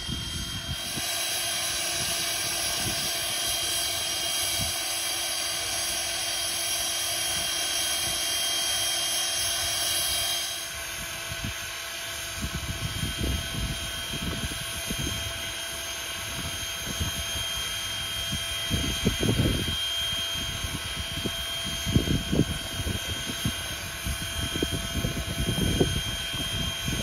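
Canadian Pacific 89, a 2-6-0 steam locomotive, standing at rest under steam: a steady hiss with a thin high whine. From about halfway on, gusts of wind buffet the microphone.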